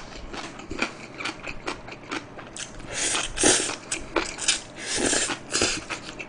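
Close-miked chewing: a quick run of mouth clicks and smacks from a person eating, louder in two stretches partway through, as a mouthful of stir-fried seaweed stems is taken in.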